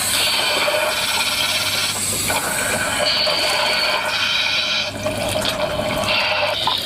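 Diver breathing through a full-face mask regulator: rushing, bubbling breaths that come and go in spells of a second or two.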